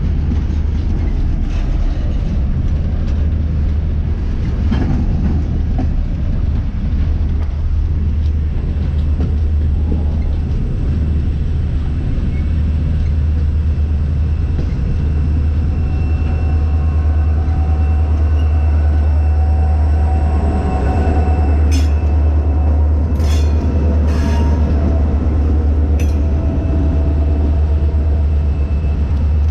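Freight train of hopper cars rolling past with a loud, steady low rumble. From about halfway the wheels squeal faintly on the rail, and a few sharp metallic clanks come a little past two-thirds of the way in.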